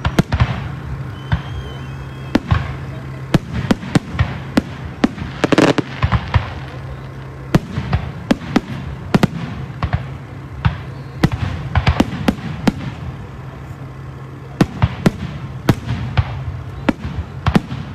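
Fireworks display: an irregular run of sharp bangs and crackles from bursting shells, densest in a cluster of rapid cracks about five to six seconds in.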